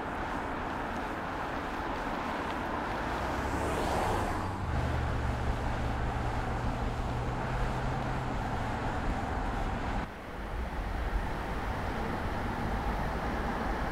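A car driving at speed on a road, with steady tyre, wind and engine noise. A whoosh swells about four seconds in. A low engine drone runs through the middle, and the sound changes suddenly twice, near five and ten seconds.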